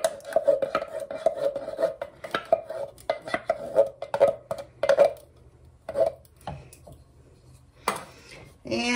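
A spoon scraping and clinking inside a metal can, emptying tomato sauce into the slow cooker. A quick run of scrapes for about five seconds, then a few single knocks.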